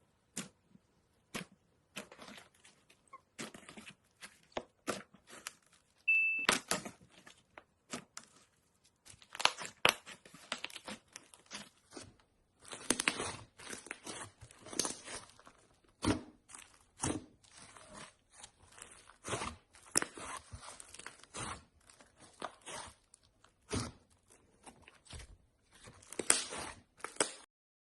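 Slime being squeezed and poked by hand, giving irregular sharp pops and crackles, denser in the second half.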